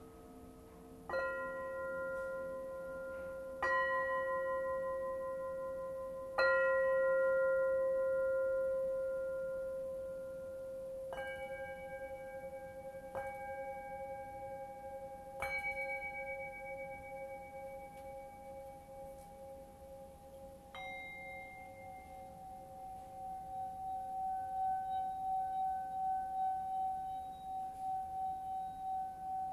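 Metal singing bowls struck one after another with a mallet, about seven strikes, each leaving long, overlapping ringing tones that slowly fade. In the last few seconds a bowl's tone swells and pulses evenly, as a stick is circled around its rim.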